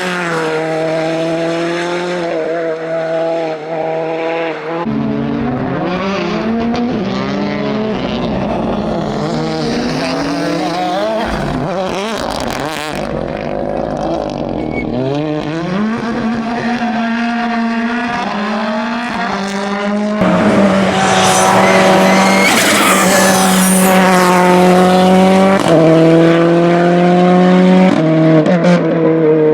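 Ford Fiesta R5 rally car's turbocharged four-cylinder engine at full stage pace, revving up and dropping back again and again through gear changes and corners, louder from about two-thirds of the way through.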